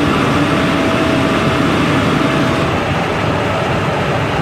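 Steady in-flight cockpit noise of a Cessna aircraft in cruise: a constant drone of engine and airflow with faint steady tones. About two-thirds of the way in the noise shifts slightly and the tones fade.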